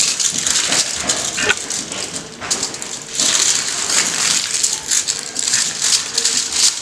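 Aluminium foil crinkling and rustling in a steady run of crackles as it is folded by hand around a piece of marinated fish.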